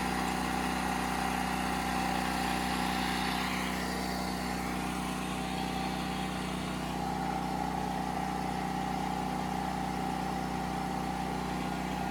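Generator engine running steadily with a constant hum, loaded by the RV's 1,500-watt rooftop air conditioner.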